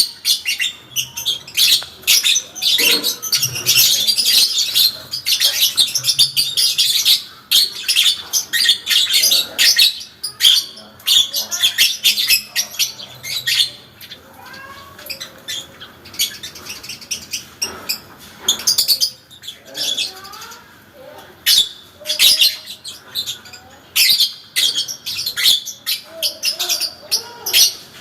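Parblue lovebird singing its long chattering 'ngekek' song: fast, shrill chirps run together in long strings, with a couple of short breaks.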